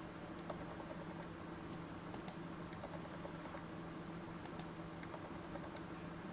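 Faint pointer-button clicks on a computer, in two quick double clicks about two seconds in and about four and a half seconds in, with a few lighter ticks. They are clicks through the dialog buttons of a software installer, heard over a steady low hum.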